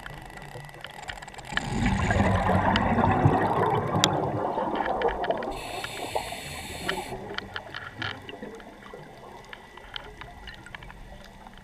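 Scuba diver breathing through a regulator underwater: a burst of exhaled bubbles gurgling from about two seconds in, then a hiss of inhaled air a few seconds later. Scattered faint clicks throughout.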